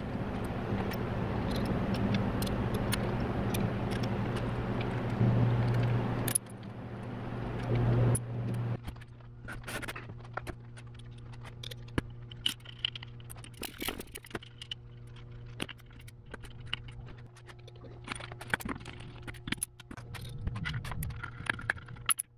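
Steel case bolts, a spouted oil can and a ratchet clinking and clicking against the aluminium Subaru EJ25 engine block as the block-half bolts are oiled and fitted. Scattered light metallic clicks from about nine seconds in, after a steady hum with rustling noise over the first six seconds.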